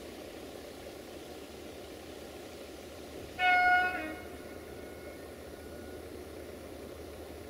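One short horn blast, just under a second long, from the approaching CFR electric locomotive 65-1300-6, about three seconds in, over steady background noise.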